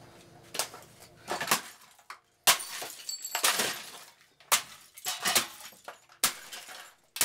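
Repeated blows smashing the broken plastic housing and parts of a Black & Decker CDX4 coffee machine, roughly one strike a second, each with a sharp crack followed by shards and pieces clattering and scattering.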